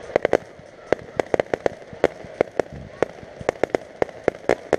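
Fireworks popping in a rapid, irregular string of sharp cracks, several a second.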